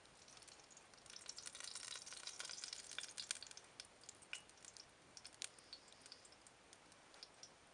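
Olive oil sizzling faintly as it is poured into a hot cast-iron Dutch oven, a crackling hiss for a couple of seconds about a second in, then scattered small pops.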